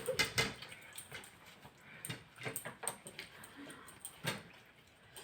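Faint, irregular mouth smacks and small clicks of people eating chapati quickly, a little louder near the start and about four seconds in.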